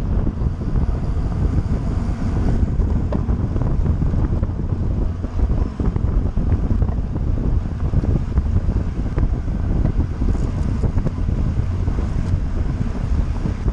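Wind buffeting the microphone of a camera on a moving road bicycle: a steady, heavy low rumble.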